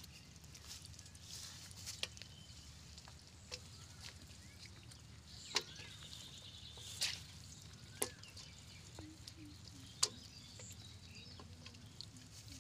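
Faint handling of a wet nylon fishing net as small fish and shrimp are picked out of it by hand, with about six sharp, irregular clicks and taps, the loudest near the end.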